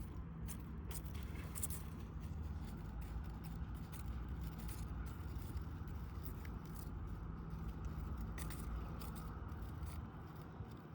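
Long grass blades rustling and crackling in short scraping clicks as a cat bats at them and bites them, over a steady low background hum.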